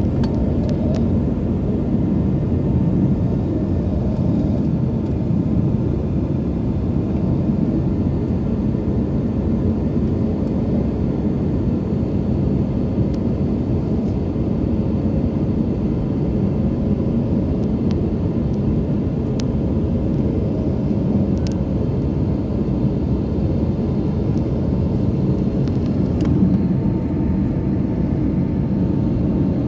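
Steady, even rumble of an airliner's jet engines and airflow heard inside the passenger cabin, with a faint steady tone above it.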